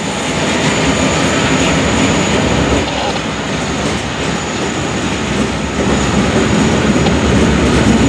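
A consist of CSX diesel-electric freight locomotives passing close by, one after another: a loud, steady rumble of diesel engines and steel wheels on the rails that slowly grows louder.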